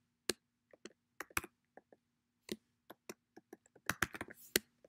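Computer keyboard being typed on: irregular key clicks, a few at a time, coming thicker about four seconds in.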